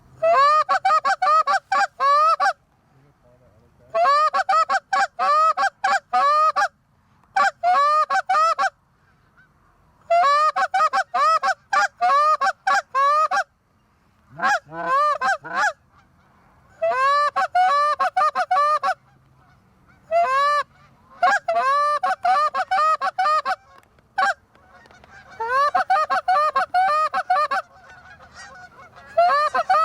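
Canada goose honks and clucks in rapid, rhythmic runs of about one to three seconds each, separated by short pauses, repeating throughout. One lower, drawn-out run comes about halfway through.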